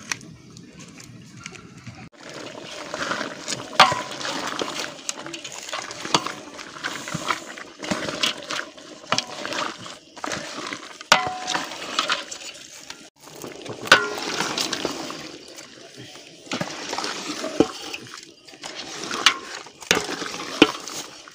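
A wooden stick stirring and scraping meat in a steaming aluminium pot, with sharp knocks of the stick against the pot every few seconds over the wet sound of the simmering stew.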